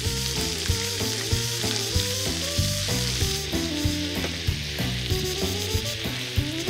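Julienned onions sizzling in oil in a pan, stirred with a wooden spatula, under background music with a stepping melody.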